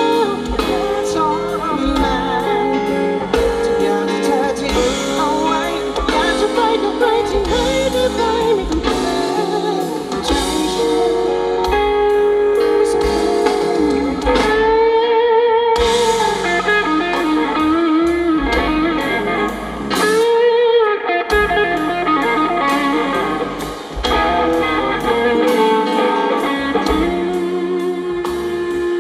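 A band playing a song live, electric guitar to the fore, with singing.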